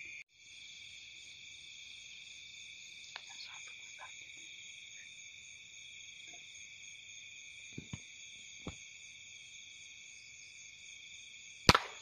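Steady night chorus of insects and frogs in a rice paddy, a few faint ticks, then one sharp gunshot near the end as a bird is shot.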